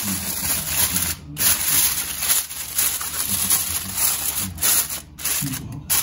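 Sheet of aluminium foil being crinkled and pressed down over a baking dish, an irregular crackling rustle.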